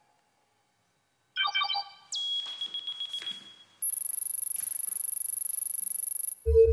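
Electronic sound effects of a display screen switching on. First a quick cluster of beeps, then a tone that drops sharply in pitch and holds. After that comes a very high, fast-pulsing tone that cuts off shortly before a low drone begins.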